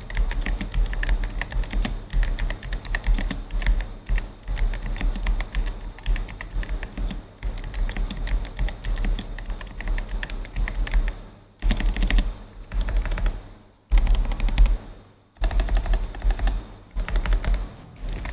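Typing on an Ajazz AK820 V2 mechanical keyboard fitted with red linear switches in place of its stock yellow tactile ones: rapid, continuous keystroke clacks, with a few brief pauses in the second half.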